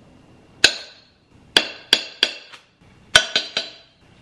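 A table knife tapping against the slow cooker's crock to knock off pats of butter: about seven sharp clinks with a short ring, in three groups about a second apart.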